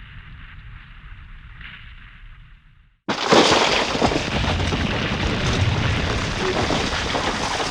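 Landslide sound effect: a muffled rumble of sliding rock fades out about three seconds in, then a sudden loud rush of tumbling rocks cuts in, a dense crackle of rock over a deep rumble that keeps going.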